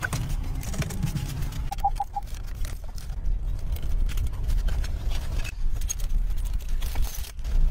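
Scattered knocks and rustles of wooden sticks and vine lashing being handled, over a steady low rumble; a short three-note chirp about two seconds in.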